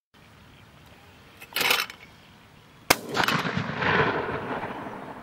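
A Champion Workhorse electric clay trap throws a clay with a short burst of noise. About a second later a shotgun fires once, the loudest sound, and its report echoes and dies away over about a second and a half.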